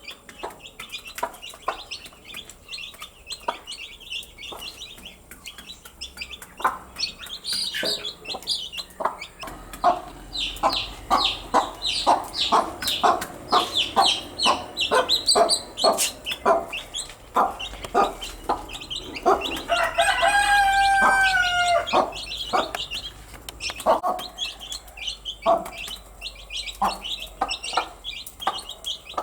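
Baby chicks peeping, joined from about ten seconds in by a hen's rapid, repeated clucking. A single drawn-out rooster crow of about two seconds comes about two-thirds of the way through and is the loudest sound.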